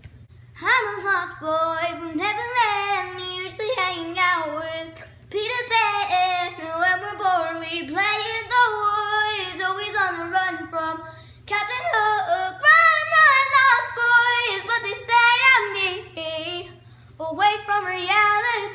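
An 11-year-old girl singing unaccompanied, in four long phrases of held, wavering notes with short breaths between them.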